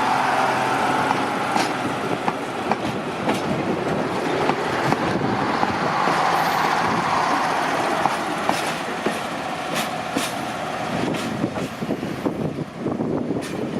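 Red Hen diesel railcars running along the track, a steady mechanical drone with irregular clicks of the wheels over rail joints; the sound fades slightly near the end as the train draws away.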